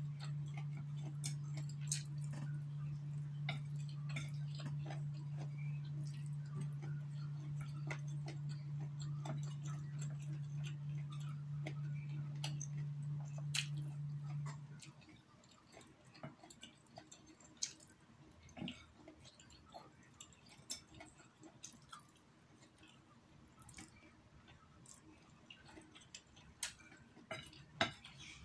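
Chopsticks clicking against a plate and chewing while eating noodles. A steady low hum runs under it and cuts off suddenly about halfway through.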